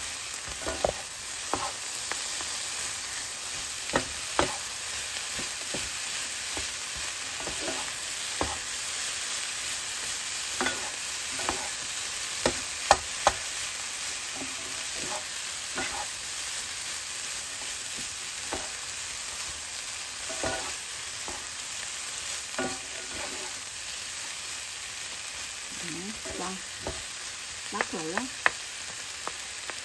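Fried rice with vegetables sizzling steadily in a nonstick frying pan as two wooden spatulas toss and stir it, with scattered knocks and scrapes of wood against the pan. The sharpest knocks come about 13 seconds in and near the end.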